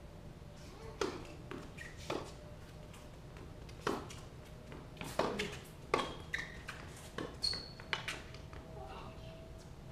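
Tennis rally on a hard court: a string of sharp pops from rackets striking the ball and the ball bouncing, coming irregularly about a second apart and loudest in the middle.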